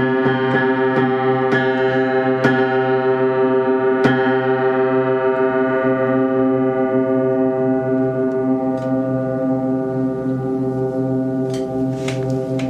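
Upright piano, improvised: a chord held ringing on the sustain pedal and slowly fading. Light high notes are struck over it about every half second in the first few seconds, and again a few times near the end.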